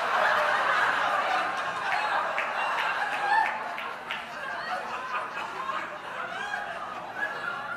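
A lecture audience laughing, the laughter dying down gradually.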